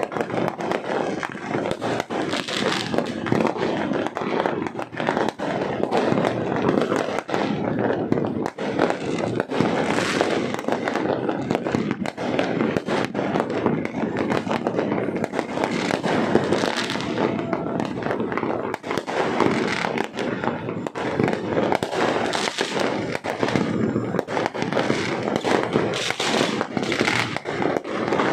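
Dense, continuous crackling and popping of fireworks and firecrackers, many bangs overlapping with no pause, with hissing swells every few seconds.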